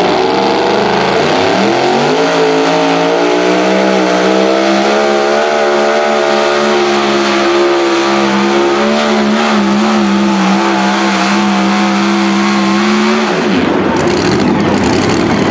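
Super modified 2WD pulling truck's engine revving up over the first couple of seconds and then held at high revs, its pitch wavering, as the truck drags the weight-transfer sled. About 13 seconds in the revs drop away sharply as the driver lifts off at the end of the pull.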